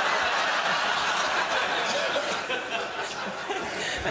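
Studio audience laughing, a dense wash of laughter that sets in just after a punchline and slowly eases off.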